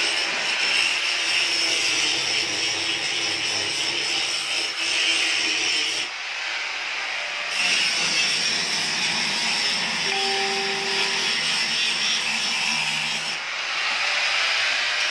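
A power tool running steadily in a woodworking shop, easing briefly about six seconds in.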